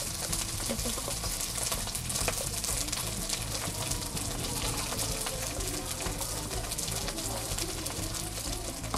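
Boiled potatoes being mashed with a steel tumbler in a steel bowl: a steady wet squashing and scraping, with many small clicks of metal against metal.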